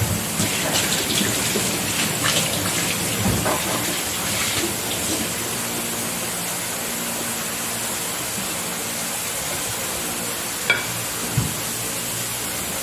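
A steady hissing rush, with two light knocks near the end.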